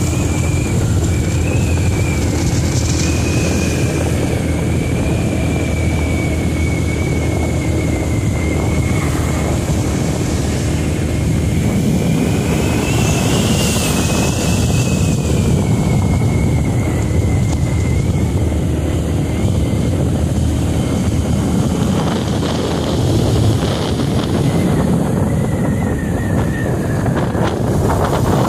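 Motorcycle running steadily at road speed with heavy wind buffeting on the microphone: a constant low engine rumble under a thin high whine that slowly wavers in pitch.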